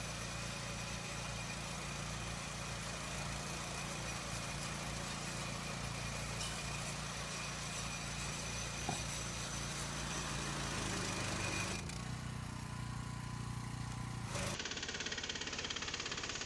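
Small tractor engine running steadily while working a miniature square baler, a continuous mechanical hum. The sound changes abruptly about twelve seconds in and again shortly before the end.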